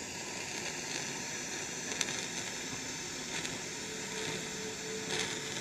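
Steady hiss of a stove burner heating a homemade biscuit-tin still of boiling liquid smoke, with a few faint ticks as condensed distillate drips into a glass mug.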